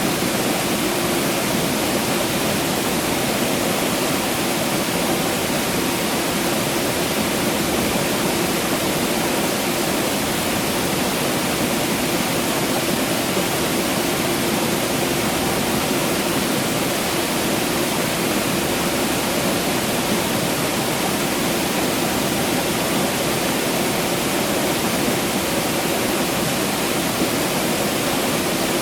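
Water rushing and falling in a steady, unbroken stream, like a cascade or waterfall.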